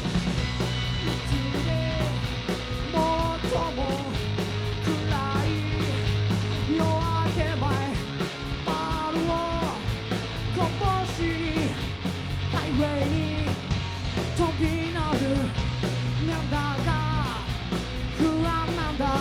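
Rock band playing live, with drums, bass and guitars and a bending melodic lead line over a steady low end.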